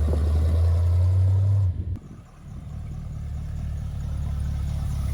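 Chevy 350 V8 engine running with a steady low drone. About two seconds in, the sound drops out abruptly, and then a quieter low engine drone builds back up.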